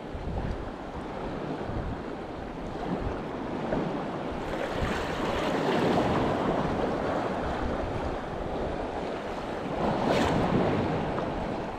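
Choppy sea washing against the rocks, with wind buffeting the microphone. The wash swells about halfway through and again near the end.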